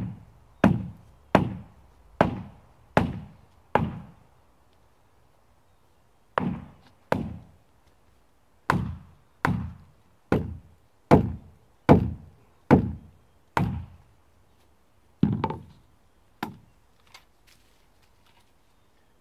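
Hammer blows on wood, driving a 2x4 lineal into the channel of a structural insulated panel: about seventeen strikes at a steady pace of a little over one a second, in three runs with short pauses, the last couple lighter.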